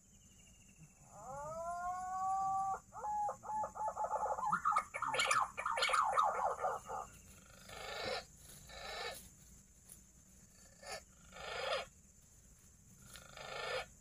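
Green pigeon (punai) call: a whistle that rises and is held for about a second and a half, then a fast bubbling run of notes. After that come several short breathy rushes.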